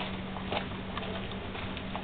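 Faint, scattered clicks of a hand screwdriver working a screw on a Piaggio Ciao moped's engine, over a steady low hum.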